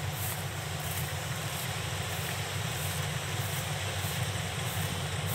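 Kubota rice combine harvesters, a DC105X and two DC70s, running steadily while harvesting, heard as an even low engine drone.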